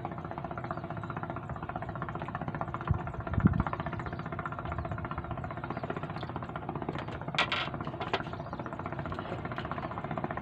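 A small engine running steadily with a fast, even chug. There are a couple of dull thumps about three seconds in and a brief hissing burst past the middle.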